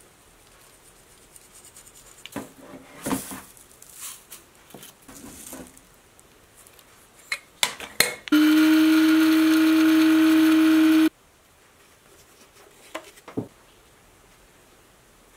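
Electric blade spice grinder running for about three seconds, grinding dried sage leaves, with a steady motor hum and whir that starts and stops abruptly. A few sharp clicks come just before it starts.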